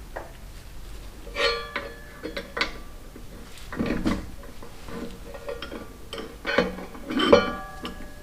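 Metal tools and parts clinking against each other, about six sharp knocks that ring briefly, the loudest near the end.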